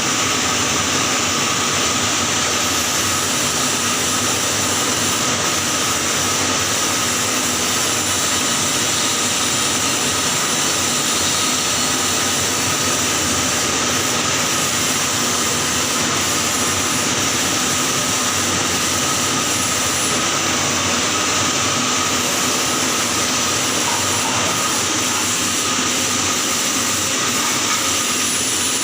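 Electric welding arc on a pipe joint, crackling and hissing steadily and without a break.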